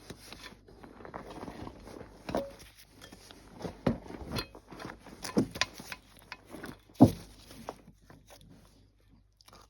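Shock-and-spring parts being handled and fitted by hand: a scatter of light clicks and knocks of the pieces against each other, the loudest about seven seconds in.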